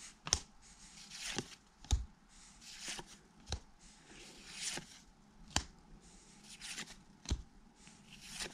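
A stack of 1991 Pacific cardboard football cards being flipped through one by one in the hands: a soft papery swish as each card slides off the stack, with a sharp snap every second or two.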